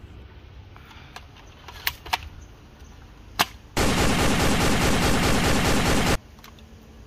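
A burst of rapid automatic gunfire, a machine-gun sound effect laid over a toy AK-47 being fired, lasting about two and a half seconds from a little past the middle. Before it come four sharp clicks.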